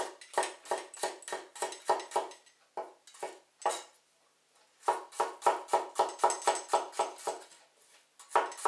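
A cleaver slicing garlic cloves on a wooden chopping board: quick, even knocks of the blade striking the board, about four a second, with a short pause partway through.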